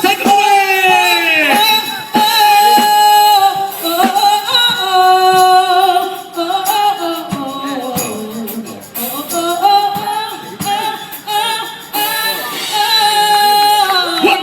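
A woman singing a song over musical accompaniment, with sustained, gliding sung notes.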